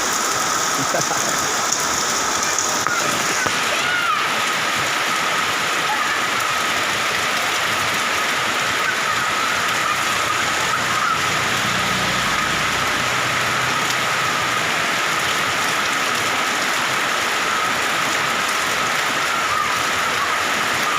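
Heavy rain falling steadily, an even hiss of drops on the surfaces all around. A thin steady tone runs faintly underneath.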